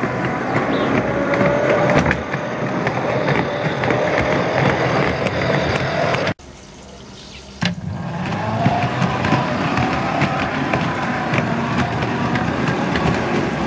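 A 1/16 scale model Model T Ford railcar running along garden railway track: a steady rolling rumble from its wheels on the rails, with a faint wavering whine from its drive and a few sharp clicks. About six seconds in the sound drops away for just over a second, then the rolling carries on.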